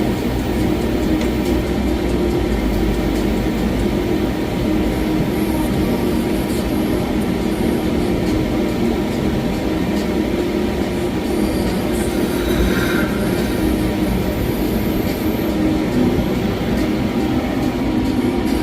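CNC lathe running in a machine shop: a steady mechanical drone of spindle and cutting noise.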